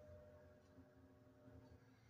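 Near silence: faint room tone with a low hum and a faint held tone that fades out near the end.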